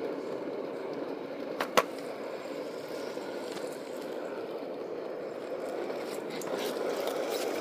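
Wheels rolling steadily over pavement, with one sharp click about two seconds in.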